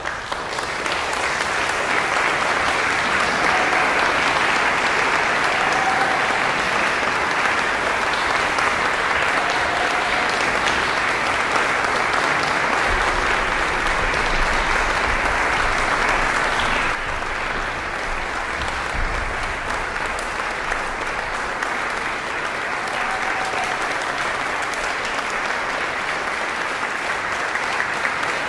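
Audience applauding: a dense, steady clapping that starts abruptly and turns a little quieter about two-thirds of the way through.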